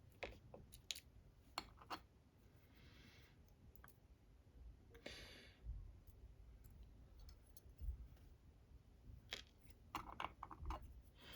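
Small sharp metal clicks and taps from the pins, springs and tool of a disassembled Assa 600 lock cylinder as the pins are picked out of their chambers, coming in scattered groups with quiet between and a couple of soft rustles.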